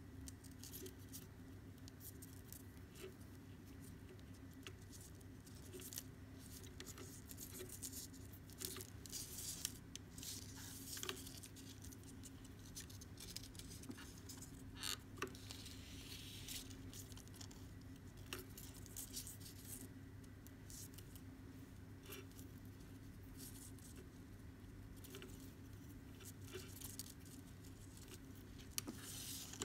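Faint rustling and light ticking of macrame cord being handled and pulled tight while knots are tied by hand, in short scattered scrapes and clicks over a steady low hum.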